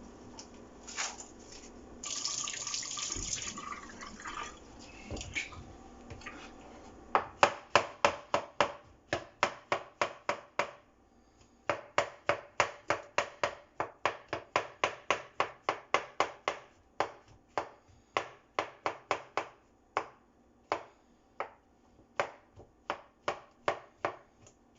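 Kitchen knife chopping baby bella mushrooms on a cutting board: quick, sharp, even taps about four a second, starting about seven seconds in and pausing briefly midway. A short rushing hiss comes about two seconds in.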